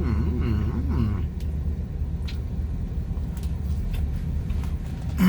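Steady low rumble of a car inside the cabin. A brief wordless vocal murmur comes in the first second, and there are a few faint clicks.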